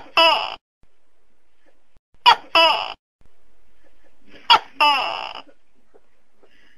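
Tokay gecko calling "to-kay" three times, about two seconds apart; each call is a sharp short note followed at once by a longer note that falls in pitch.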